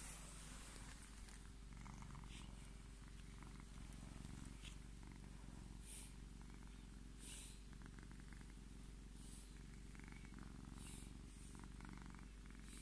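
Scottish Fold cat purring steadily while being stroked, close to the microphone, with brief soft swishes of a hand rubbing its fur every second or two.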